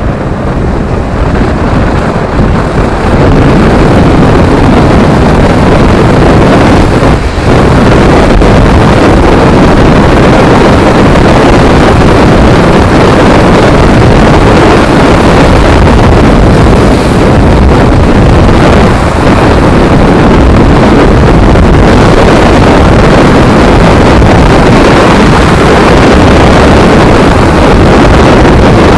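Loud wind buffeting on a helmet camera's microphone while riding a sport motorcycle at speed, with the bike's running noise underneath. It grows louder over the first few seconds as the bike picks up speed, then holds steady.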